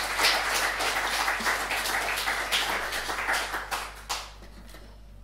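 A small audience clapping. The applause thins out to a few last claps and stops about four seconds in.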